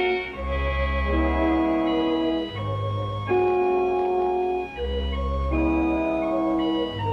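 Background music score of held chords that change every second or two over a deep bass line.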